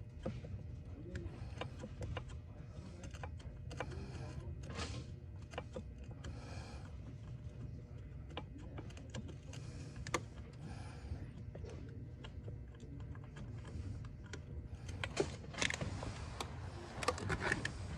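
Irregular small metal clicks and taps of a wrench turning a tight 14 mm brake line fitting on a master cylinder a little at a time, over a low steady hum.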